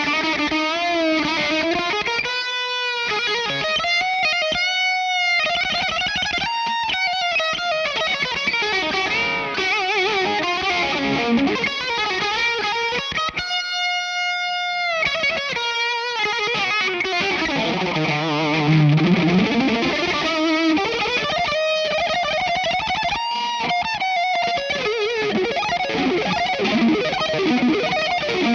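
Electric guitar playing a sustained lead melody, with smooth string bends and vibrato on held notes: a demo of a custom Schecter USA Masterworks guitar.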